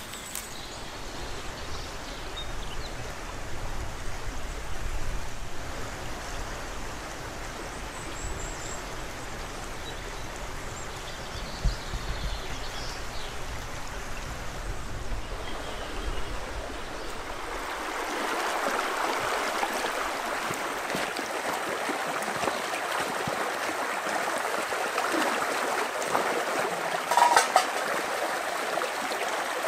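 Shallow stream running over stones. The sound of the water grows fuller about two-thirds of the way through, and there is a brief louder splash near the end.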